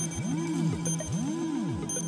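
Background music: electronic tones, with a steady low hum under repeated swooping notes that rise and fall.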